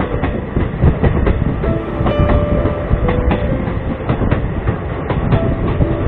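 Steady rumble and irregular clatter of a moving vehicle ride, with held musical notes of a background tune over it.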